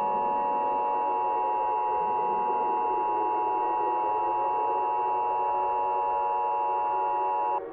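Emergency Alert System attention signal: a loud, steady two-tone electronic alert tone that cuts off suddenly near the end.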